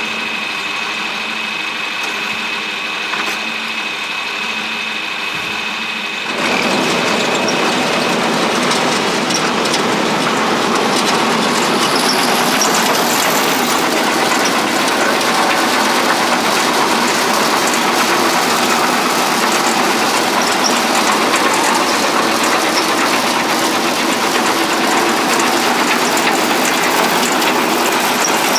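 Tractor engine idling steadily. About six seconds in, a much louder, even mechanical clatter sets in and holds: the Willmar Super 600 fertilizer spreader running off the tractor's PTO, its drive chains and spinner discs turning.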